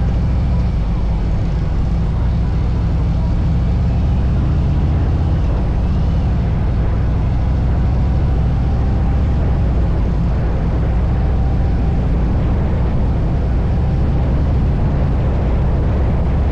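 Harley-Davidson motorcycle running steadily at speed, its engine drone mixed with heavy wind rush.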